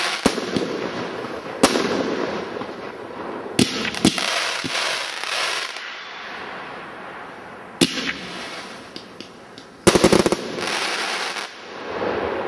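WECO 'Symphony of Colours' fireworks firing: single sharp bangs of bursting shots a few seconds apart, each followed by a hissing wash, then a rapid volley of bangs about ten seconds in.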